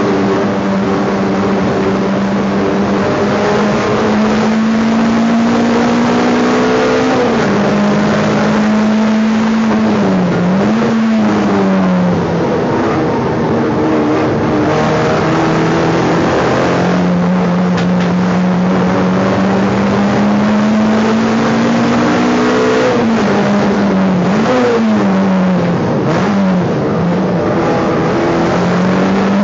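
Race car engine heard from inside the stripped, roll-caged cabin, held at high revs and rising slowly in pitch along the straights. Its pitch drops and climbs back several times for gear changes and corners, a few times in the first half and again near the end.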